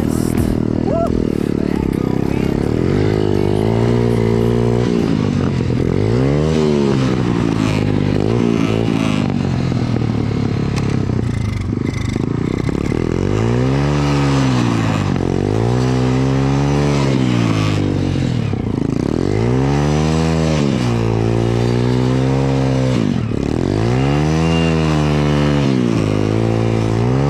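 BSE pit bike's single-cylinder four-stroke engine being ridden, revving up and down again and again. Its pitch rises and falls about every two seconds through the later part, under throttle on a slippery snow track.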